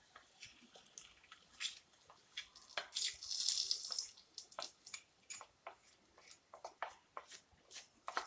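Hot coconut-oil seasoning of mustard seeds, shallots and curry leaves crackling in small irregular pops, with a brief louder sizzle about three seconds in.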